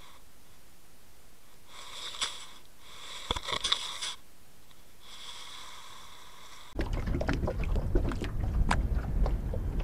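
Faint underwater camera sound with three short high-pitched buzzing stretches, then, about seven seconds in, a sudden switch to loud wind buffeting the microphone and water lapping at a small fishing boat's hull.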